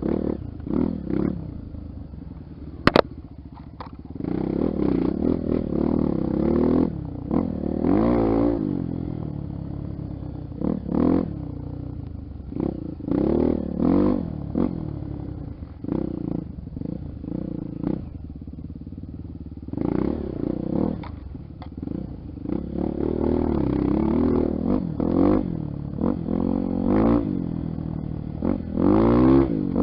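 Honda XR 250 Tornado's single-cylinder four-stroke engine revving up and down in repeated bursts of throttle, with one sharp knock about three seconds in.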